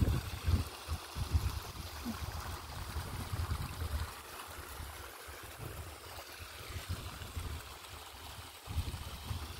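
Shallow water trickling over rocks at the foot of a stepped concrete weir spillway, a steady running-water hiss. Uneven low rumbling runs under it, strongest in the first four seconds and again near the end.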